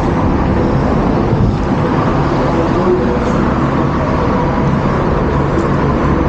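A car on the move: steady road and engine noise with a heavy low rumble.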